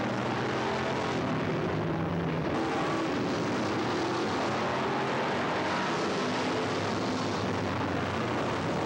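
Several stock car engines running at speed around a dirt oval, a steady drone of engines at different pitches that shift as the cars go by.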